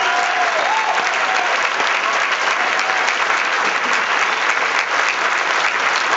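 Audience applauding steadily and loudly, with a few cheering voices in the first second.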